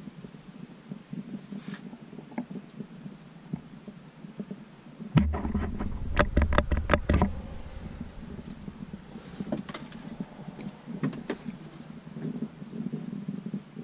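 A cluster of close knocks and clatter with deep rumbling handling noise for about two seconds, starting about five seconds in, amid faint scattered clicks and shuffling over a low steady hum.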